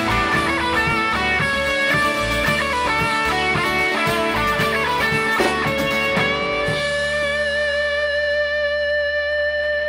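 Live band with electric and acoustic guitars, bass and drums playing an instrumental ending after the last chorus: moving guitar notes over the beat, then about seven seconds in a final chord struck and left ringing.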